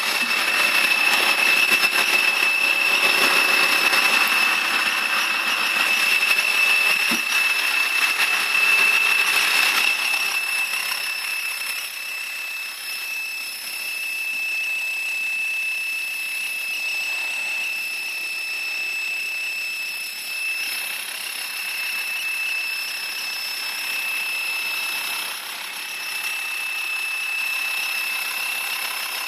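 Volkswagen Transporter T5 engine idling with a steady high-pitched whistle over it. The whistle holds one pitch throughout. The engine noise is louder for about the first ten seconds, then settles.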